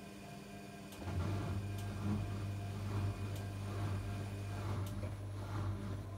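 Zanussi integrated washing machine's motor cutting back in about a second in and turning the drum, a steady hum with a regular swish of laundry roughly once a second and a few faint ticks. This is part of the synthetics 40° programme's second interim spin.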